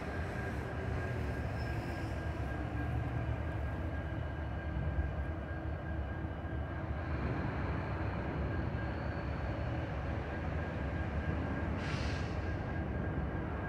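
Diesel-electric locomotives idling, a steady low rumble with a thin steady whine over it; a short hiss about twelve seconds in.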